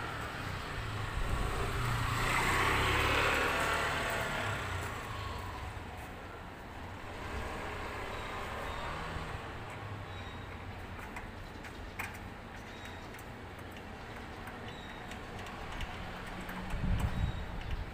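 Background noise: a low rumble with a broad swell of noise that rises and falls about two to four seconds in, and a few faint clicks.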